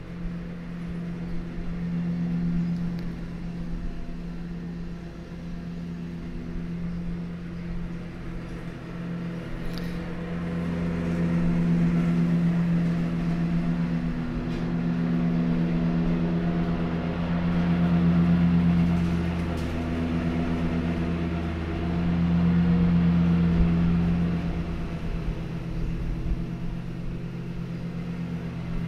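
A steady low droning hum made of several held pitches, swelling and fading slowly every five or six seconds.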